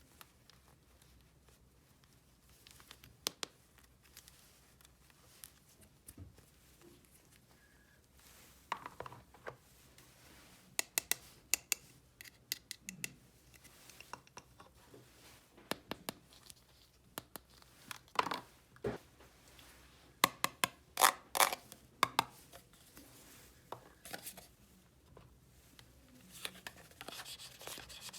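Small objects, most likely plastic toy pieces, handled by hand: scattered light clicks, taps and scrapes. They are sparse at first and grow busier after about nine seconds.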